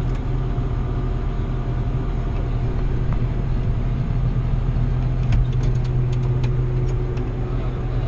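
Steady drone of a John Deere 7800 tractor's six-cylinder diesel engine heard from inside its cab, mixed with the Case IH 2388 combine harvesting corn alongside. A few faint ticks come about five to seven seconds in.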